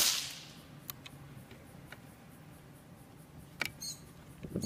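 A single .22 LR gunshot from a Wolf Match Extra round, clocked at 1036 fps, just under the speed of sound, so only the muzzle report is heard with no bullet crack. It is a sharp report with a short echo trailing off over about half a second, followed by a few faint clicks and a couple of small knocks near the end.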